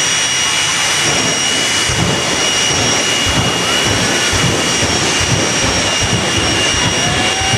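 Jet engine of a jet-powered drag racer running at full power: a loud, steady rush with a high whine. A heavier low rumble joins about two seconds in.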